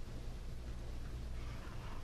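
Room tone: a steady low hum with a faint background hiss.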